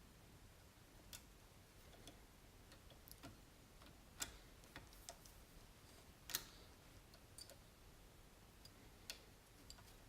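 Faint, scattered metallic clicks and ticks of a circlip and spacer ring being fitted into the top of a motorcycle fork tube, with two sharper clicks about four and six seconds in.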